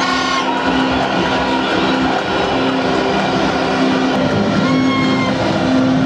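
Football stadium crowd roaring steadily, with long, steady horn notes sounding over the din again and again.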